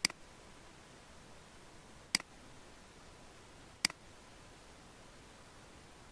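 Three computer mouse clicks about two seconds apart, each with a fainter tick just after it, over a faint steady hiss.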